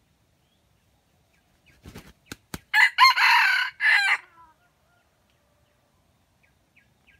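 Red junglefowl rooster giving a few quick wingbeats, then crowing once, loud, about three seconds in.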